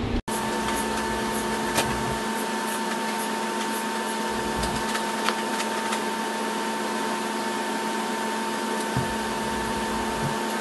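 Steady mechanical hum and hiss, after a momentary break just after the start, with a few faint clicks of metal parts being handled.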